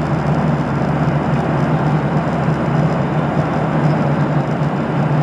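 Airliner cabin noise at cruise altitude: a steady rush of airflow and engine noise with a constant low hum.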